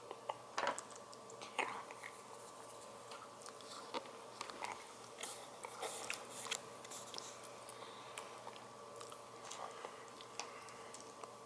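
Faint, scattered small clicks and taps of hands pressing and handling Play-Doh pieces, with a faint steady hum underneath.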